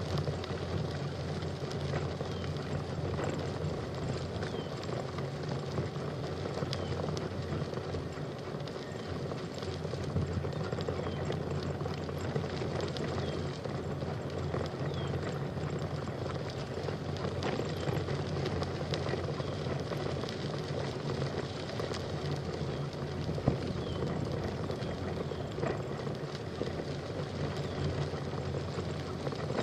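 Steady rumble and hiss of a bicycle rolling along a trail, with a few faint short bird chirps above it.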